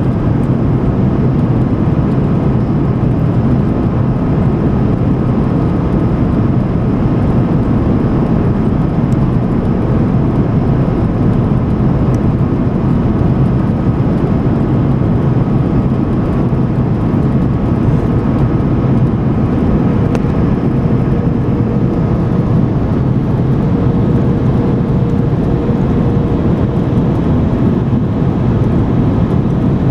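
Airbus A330 cabin noise from a window seat over the wing on descent: the steady low rumble of its Rolls-Royce Trent 700 turbofan engines and rushing airflow, with a faint steady whine above it.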